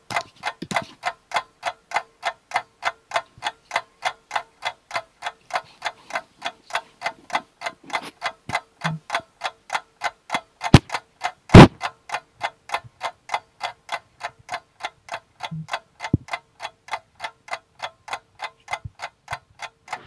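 Ticking-clock sound effect: rapid, even ticks, about four or five a second, with two louder sharp clicks about a second apart a little past halfway.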